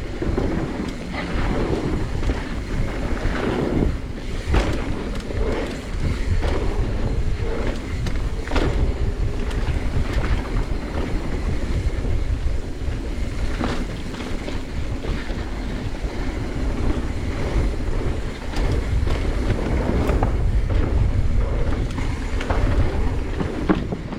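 Wind rushing over the microphone of a rider's camera on a moving mountain bike, a steady low rumble with scattered knocks and rattles from the bike over rough ground.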